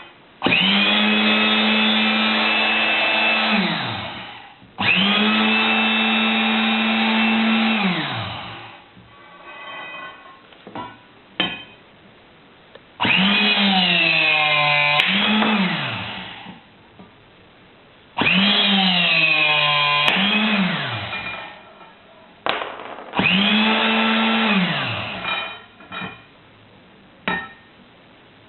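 Portable hydraulic rebar cutter's electric motor started and run five times, each run lasting about three to four seconds before the motor winds down with a falling whine. In the third and fourth runs the pitch sags in the middle and recovers. Short clicks come between the runs.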